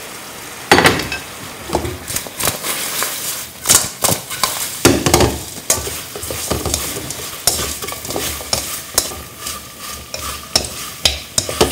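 Fried chicken wings being tossed and stirred with a wooden utensil in a thick, sticky fish-sauce caramel in a metal wok: the sauce sizzles while the wings and utensil knock and scrape against the pan in irregular strokes, the loudest about a second in.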